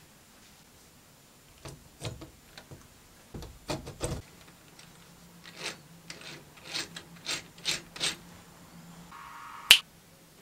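Hands handling and fitting metal model-engine and chassis parts on a cutting mat: an irregular run of knocks, clicks and rubs, with one sharp click near the end.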